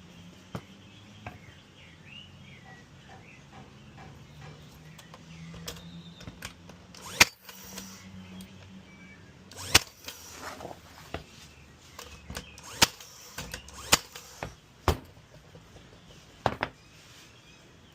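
Irregular sharp knocks and clicks, a few at a time, with the loudest about seven seconds in and a run of them toward the end, over a faint low hum.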